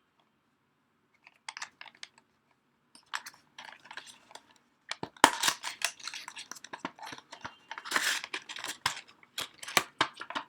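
The retail packaging of a flash drive being handled and opened: irregular sharp crackles and scrapes, sparse at first, then busier and louder from about five seconds in.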